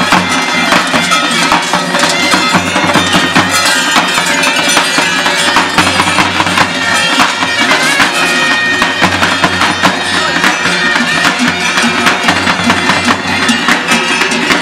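Bulgarian folk music played on a reed wind instrument over a steady drone, with a tapan bass drum beating.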